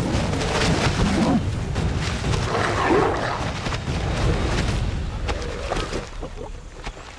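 Two male lions fighting, with deep growls and snarls over a heavy low rumble. The fight dies down after about six seconds.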